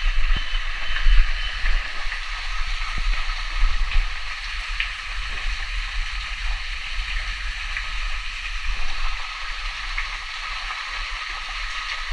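Small rainforest waterfall splashing steadily, with a constant low rumble under the rush of water.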